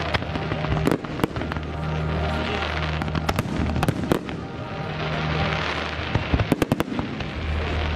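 Aerial firework shells bursting with sharp bangs, scattered at first and then a quick run of several bangs about six seconds in. Under them runs steady low background music.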